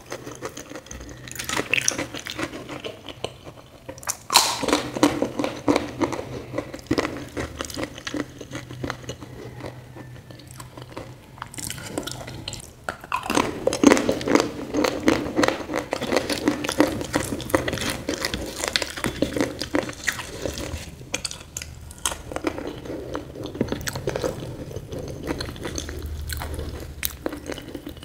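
Close-miked chewing and biting, with crunchy bites, as a mouthful of food is eaten by hand. It comes in spells of rapid crackly chewing, loudest from about four seconds in and again from about thirteen seconds, with short lulls between.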